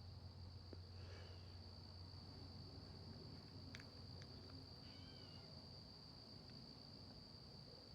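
Faint, steady high-pitched trill of crickets singing continuously, with a couple of short bird chirps and a low hum that fades out in the first few seconds.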